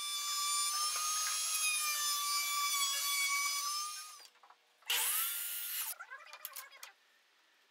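Table-mounted router cutting along the edge of a pressure-treated pine strip, a steady high whine with cutting noise that stops about four seconds in. About a second later a power saw spins up and cuts for about a second, followed by a few light taps.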